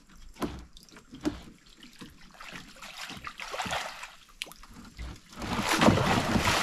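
Water trickling and sloshing around a fish trap's net, with a couple of knocks early on; then, near the end, a large fish thrashes and splashes hard in the water inside the net, the loudest sound.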